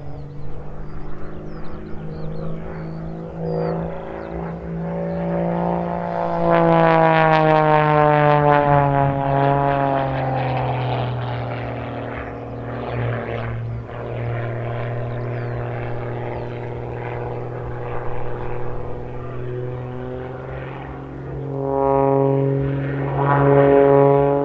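Aerobatic MX Aircraft MXS's Lycoming AEIO-540 six-cylinder engine and propeller in display flight, the pitch rising and falling through the manoeuvres. It swells loudest about six seconds in and falls in pitch as it passes, then grows loud again near the end.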